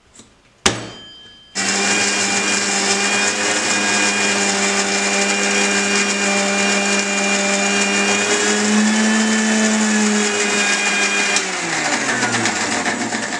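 Electric mixer grinder (mixie) grinding fresh henna leaves with aloe vera gel into a paste: a click, then the motor starts about a second and a half in and runs steadily at high speed. Near the end it is switched off and winds down with a falling pitch.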